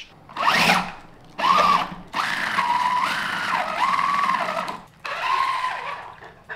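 An RC car's electric motor and gears whining as its wheels spin off the ground, revved in four uneven spurts, the longest about two and a half seconds, with the pitch rising and falling as the throttle changes.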